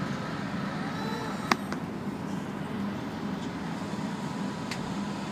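Inside a city route bus on the move: a steady engine and road hum, with a single sharp click about a second and a half in.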